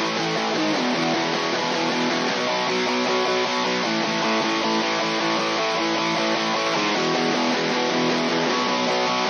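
Strummed electric guitar tracks from a band mix, playing steadily through a hardware stereo bus compressor.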